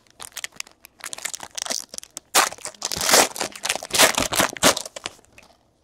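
Foil trading-card pack wrapper being torn open and crumpled by hand: a quick run of crinkling and ripping that is loudest in the middle and dies away near the end.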